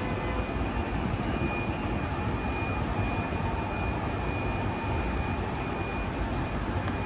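Steady low rumble of city street ambience, with a faint thin high tone coming and going.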